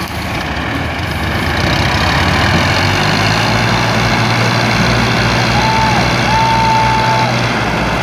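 Diesel tractor engines revving up and then holding high revs while pulling a heavily loaded sugarcane trolley; the 65 hp Al Ghazi tractor is straining at the load. Near the end a high whistle-like tone sounds twice, first briefly, then for about a second.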